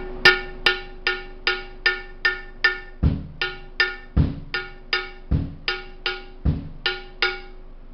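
The drum kit's 'Anarchy combo' effects piece struck in a steady beat, about two and a half short ringing hits a second, each with the same clear pitch. A bass drum joins about three seconds in, thumping four times about a second apart.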